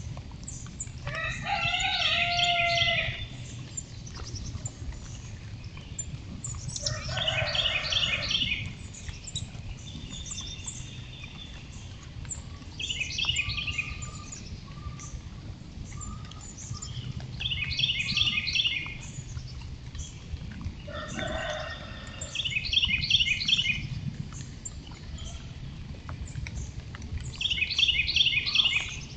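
Birds calling: a songbird repeats a short phrase of rapid notes six times, about every five seconds, and a lower, drawn-out call sounds with three of the phrases.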